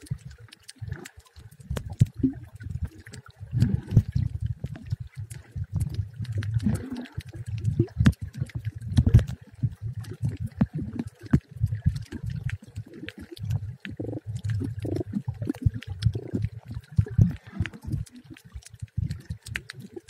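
Underwater sound picked up by a camera moving over a coral reef: an irregular, muffled low rumbling and sloshing of water, with many scattered sharp clicks throughout.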